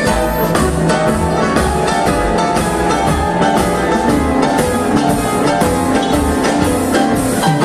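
Live band music with a steady beat: drums, upright bass, keyboard and a horn section with saxophones and trumpet playing on stage.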